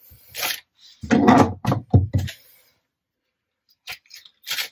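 Kitchen handling noises: dull thumps and rustling as a plastic zip-top bag and a handheld lemon squeezer are handled, then a few short clicks near the end as the lemon is pressed.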